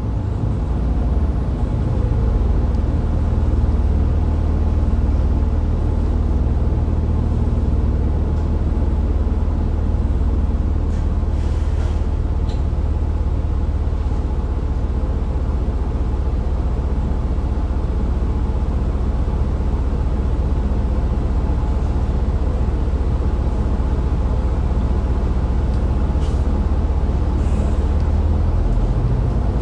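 2021 New Flyer XDE40 diesel-electric hybrid bus running between stops, heard from inside the bus: a steady low drone of the drivetrain with faint steady whine tones over it. Near the end the drone drops away and a rising whine begins.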